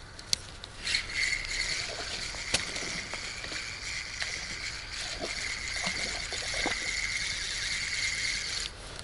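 Tsurinoya FS 2000 spinning reel being cranked: a steady gear whir that starts about a second in and stops abruptly near the end. A sharp click comes just before the whir begins.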